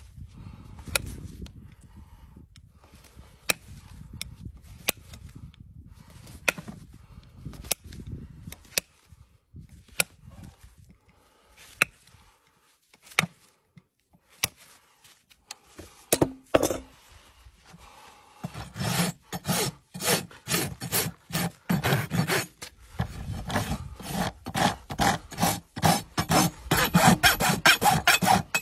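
Hoof nippers cutting a horse's hoof wall, each bite a sharp snap, scattered over the first two-thirds. Then a farrier's rasp files the hoof in quick, rhythmic, loud scraping strokes.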